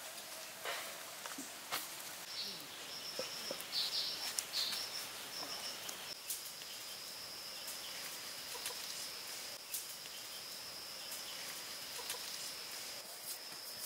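Forest ambience dominated by a high-pitched steady call from wildlife, which comes in stutters about two seconds in and then holds without a break, with a few scattered light clicks and rustles from grass turf being pressed into place.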